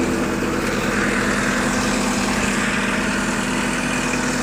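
Wacker Neuson skid steer's glow-plug diesel engine running steadily just after a cold start.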